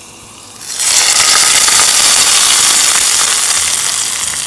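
Hot coconut-oil tempering of mustard seeds, dried red chillies and curry leaves poured into beetroot pachadi, sizzling and crackling loudly as it hits the curd-based curry. It starts suddenly about a second in and slowly dies down.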